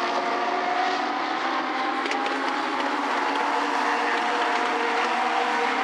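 Legends race cars' four-cylinder Yamaha motorcycle engines running hard as a small pack laps a short oval, several engine notes overlapping and drifting slightly in pitch.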